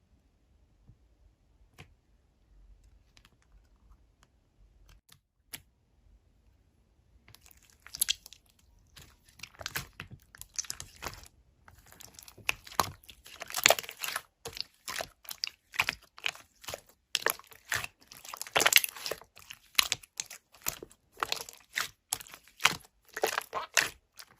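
Slime being squeezed and pressed by hand, making irregular sticky crackles and pops. It starts about seven seconds in, after near silence with a few faint clicks.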